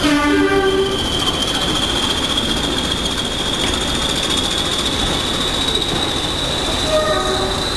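Slow-moving train of passenger coaches with a continuous high-pitched wheel squeal that creeps slightly upward in pitch. A short two-note locomotive horn sounds at the start, rising from the lower note to the higher, and a brief horn note comes about seven seconds in.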